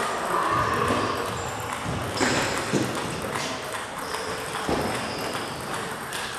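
Celluloid-style plastic table tennis balls knocking off bats and tables, irregular sharp clicks from several games going on at once in a large sports hall.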